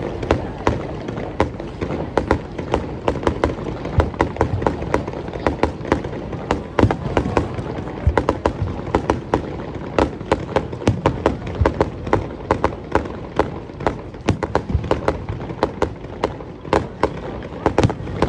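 Fireworks display: a dense, continuous run of firework bangs and crackles, several a second, over a steady low rumble.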